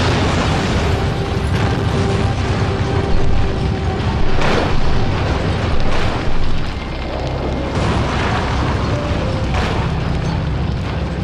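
A car bomb exploding: a sudden loud blast, then a long rumbling fireball with several further bangs through the middle. Music plays faintly underneath.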